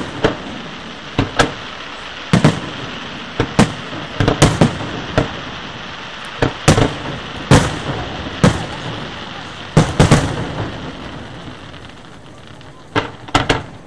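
Display fireworks bursting overhead: a string of sharp bangs at irregular intervals, some in quick clusters, over a steady crackle. The bursts thin out about two-thirds of the way through, then a few come close together near the end.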